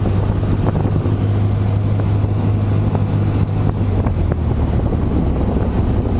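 Cessna Aerobat's engine and propeller running at low power while the plane rolls along the runway, heard from inside the cockpit as a steady low drone.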